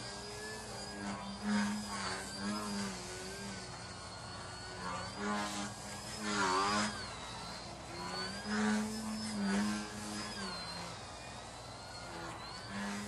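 Electric motor and propeller of a YAK 55M 3D EPP foam RC aerobatic plane buzzing in flight, its pitch and loudness rising and falling with throttle changes, with a thin high whine over the buzz. About six and a half seconds in the pitch dips sharply and comes back up.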